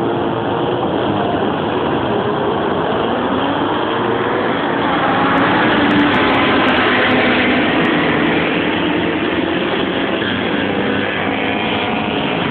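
A pack of historic racing motorcycles going past on the track, several engines at full revs with their notes rising and falling, loudest about halfway through.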